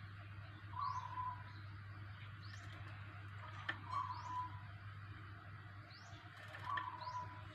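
Faint bird calls: a short call repeated three times, about three seconds apart, with brief high chirps between them. A steady low hum sits under it, and a single click comes near the middle.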